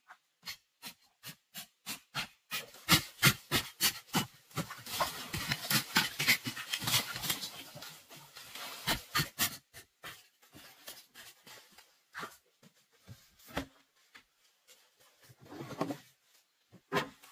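Digging in dry, crumbly soil: quick, rhythmic scraping strokes into the earth as a hole is dug out and loose dirt is scooped away by hand. The strokes come thick and fast through the middle, then thin out to scattered scrapes and a few knocks.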